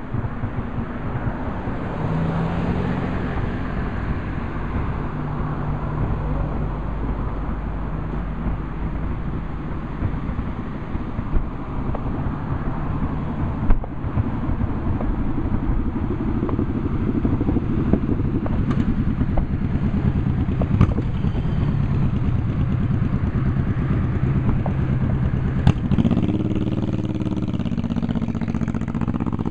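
A vehicle engine running steadily, rising in pitch near the end as it speeds up, with a few sharp pops scattered through.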